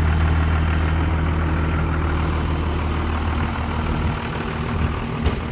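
A heavy engine idling with a steady low hum that eases off about three to four seconds in, then a single sharp click near the end.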